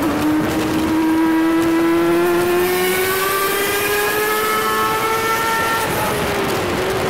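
Sport motorcycle engine heard onboard at high revs, its pitch rising slowly as it pulls through a gear, with wind rushing over the bike. About six seconds in the revs dip briefly as the throttle is eased, then settle again.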